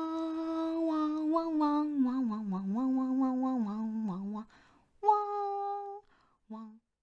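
A woman humming a short tune: a long held note, then a wavering melody that stops about four and a half seconds in, followed by one more held note and a brief last note.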